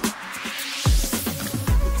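Electronic background music: a rising hiss sweeps up over about the first second, deep kick-drum hits land about a second in and again near the end, and a steady deep bass then holds.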